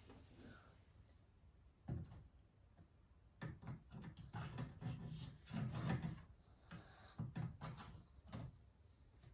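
Faint clicks, knocks and scrapes of a graphics card being handled and pushed into the motherboard's PCIe slot: one knock about two seconds in, then several clusters of clicks and scraping.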